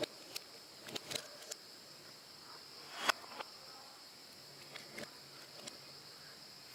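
Marbles clicking and knocking as they run through a plastic building-block marble run: a scatter of irregular sharp clicks, the loudest about three seconds in. A steady high-pitched chirring, like crickets, runs behind them.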